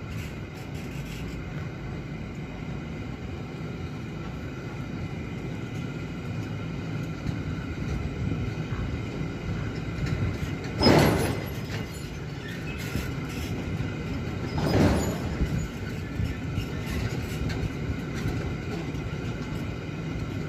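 Freight train of loaded car-carrier wagons rolling steadily past, its wheels rumbling on the rails. Two brief louder swells of noise come about halfway through and again a few seconds later.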